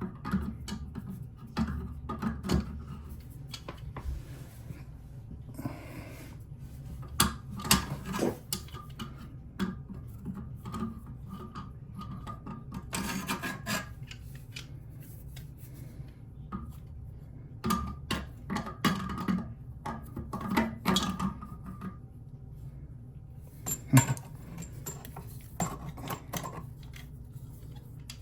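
A wrench working on the toilet tank's water-supply fitting: irregular metal clicks, taps and scrapes as the tool is fitted and turned, coming in clusters with the sharpest knock about 24 seconds in.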